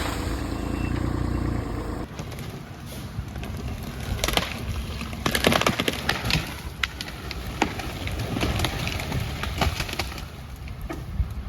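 An engine running steadily, which stops abruptly about two seconds in. Then a long irregular run of sharp cracks and snaps: Norway spruce branches and wood breaking and splintering.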